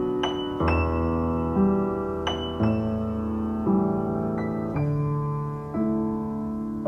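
Slow solo piano passage of a ballad with no singing, about ten single notes and chords struck one after another, each left to ring and fade.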